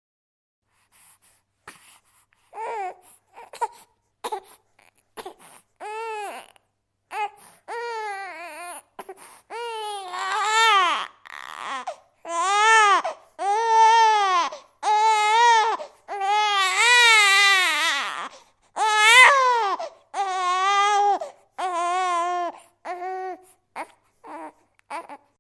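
Infant crying: short fussing whimpers build into long, loud, arching wails through the middle, then ease back into shorter, quieter cries near the end.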